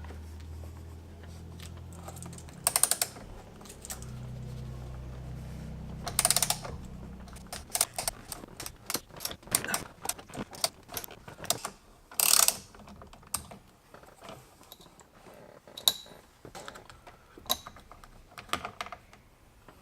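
Hand tools and parts clicking and knocking during steering-wheel removal: a ratchet clicking in two short runs in the first several seconds over a low steady hum, then many scattered light clicks and knocks.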